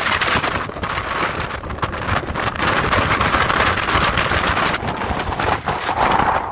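Strong, gusty storm wind buffeting the microphone in a violent winter storm: a loud rushing roar that surges and dips, with rapid buffeting thumps.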